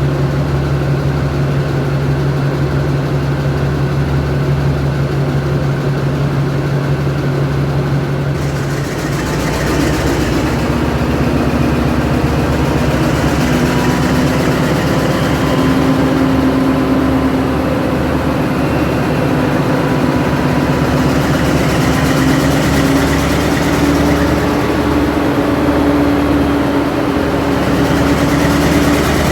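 Diesel locomotive engine running steadily at idle; about nine seconds in its note changes and then slowly rises as the engine speeds up.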